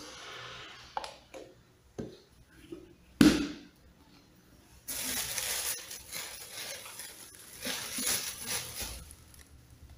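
Pink plastic food containers being handled on a table: a few light knocks, the loudest about three seconds in, then about four seconds of rustling and handling noise.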